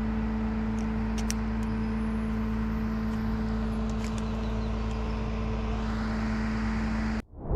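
An engine running steadily at a constant speed, with a few faint clicks over it. It cuts off abruptly near the end and a louder burst of sound follows.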